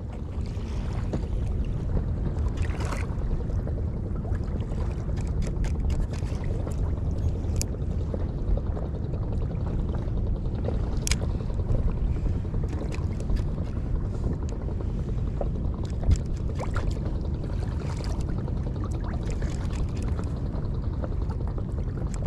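Steady low rumble of water and wind around a small inflatable boat, with scattered light clicks and taps, the sharpest about eleven seconds in.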